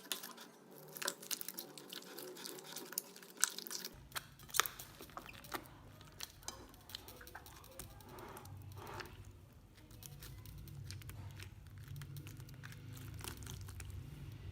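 Slime being squeezed and worked by hand: a quick run of sticky clicks and crackles that thins out after about seven seconds, over a low steady hum.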